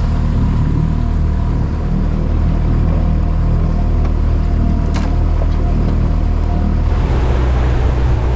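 Outboard motor running steadily with a low hum as the boat motors along; its low note shifts about seven seconds in.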